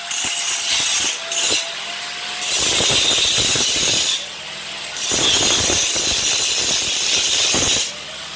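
Angle grinder grinding down welds on a steel gate. The disc is pressed onto the metal in four passes, each a loud rough grind. Between passes the motor runs free with a lighter whine.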